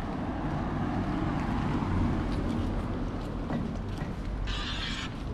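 Street ambience with a vehicle engine running past, its low hum strongest in the first couple of seconds, and a brief hiss about four and a half seconds in.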